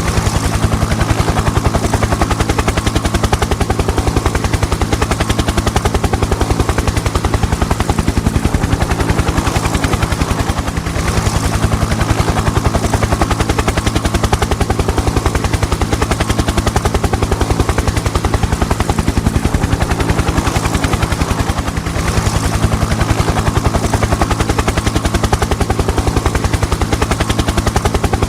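Helicopter rotor running steadily, its blades giving a fast, even chop over the engine noise, with a brief dip in loudness twice.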